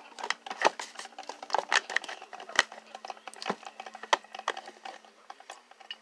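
Handling noise: irregular clicks, taps and light rustles as things are picked up and set down on a kitchen counter, with one sharper knock about two and a half seconds in, over a low steady hum.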